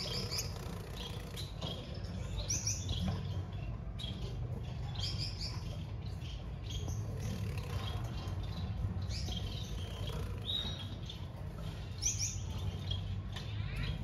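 Finches chirping: short, high chirps come every second or two, some in quick doubles, over a steady low hum.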